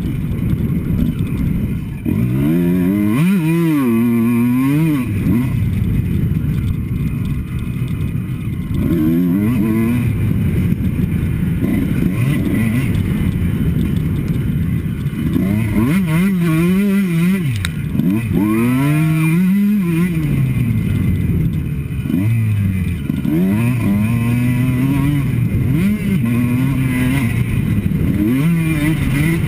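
Two-stroke Kawasaki KX motocross bike being ridden hard, the engine pitch climbing and dropping again and again as the throttle is opened and shut through the turns. Heard from a helmet-mounted camera, with a steady wind rush under the engine.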